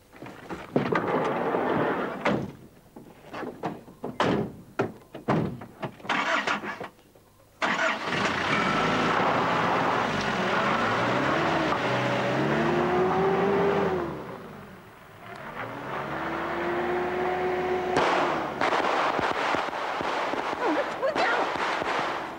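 A run of knocks and thuds as people pile into a van. About seven seconds in, the engines of a van and a jeep come in and rev, rising and falling in pitch as they pull away.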